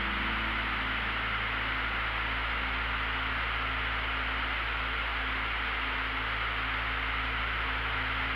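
Steady engine and airflow noise of a small aircraft in level flight, an even hiss with a low drone underneath.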